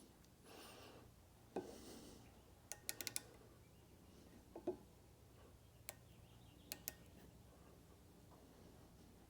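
Faint scattered clicks of a micrometer being handled and adjusted on a camshaft, including a quick run of four clicks about three seconds in, over a low room hum.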